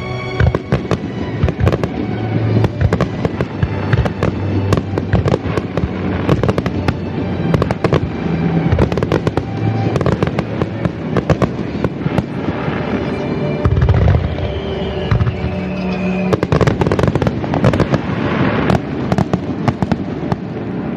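Aerial fireworks bursting and crackling in quick succession throughout, over background music.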